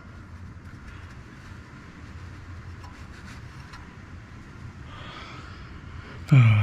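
Car engine running with a steady low hum, then revving sharply near the end and quickly dropping back toward idle.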